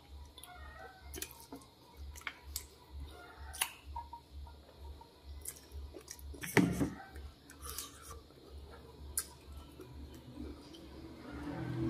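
Close mouth sounds of someone chewing small soft berries, with scattered wet clicks and smacks, and one louder thump about six and a half seconds in.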